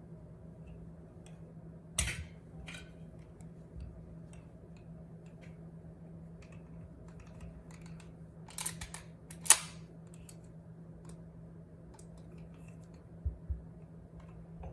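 Steel parts of a .45 ACP 1911 pistol clicking and clacking as it is reassembled by hand, with a sharp clack about two seconds in, a quick run of louder clicks around nine seconds, and two dull knocks near the end, over a faint steady hum.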